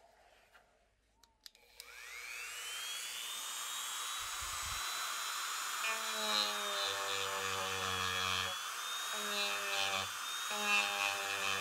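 Handheld rotary tool spinning up to a steady high whine about two seconds in. From about six seconds a felt polishing bob is pressed against the knife steel in several passes, adding a buzzing rub on and off.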